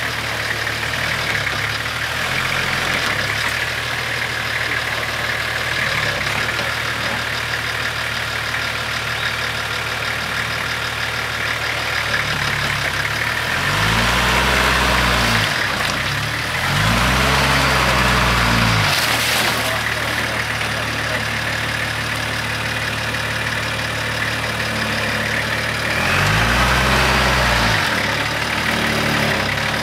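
Nissan GQ Patrol four-wheel drive engine idling as the vehicle crawls down a muddy track, revving up and settling back three times: twice around the middle and once near the end.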